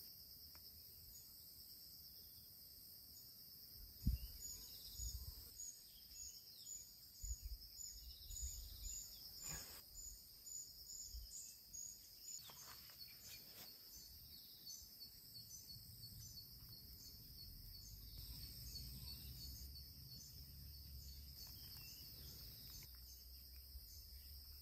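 Faint, steady insect chorus of high-pitched chirps pulsing in a quick rhythm, with scattered soft knocks and handling noises from about four seconds in.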